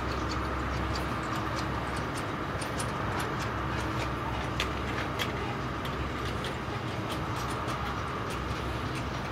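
Freight wagons of a long SCT train rolling past: a steady rumble with a low drone, sprinkled with irregular sharp clicks and ticks from the wheels and couplings.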